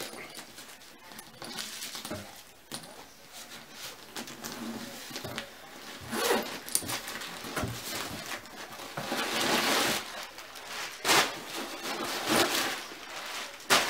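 Rustling and crinkling of wrapping and stuffing being pulled off and out of a new handbag, with scattered handling knocks and clinks and a longer rasp about nine seconds in.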